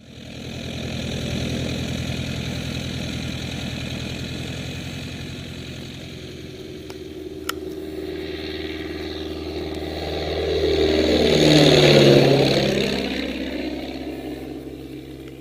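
Jodel D9 light aircraft's single piston engine running, loud at first, then growing louder as the plane makes a low pass overhead. It peaks about twelve seconds in, its pitch drops as it goes by, and then it fades. A single sharp click falls about halfway through.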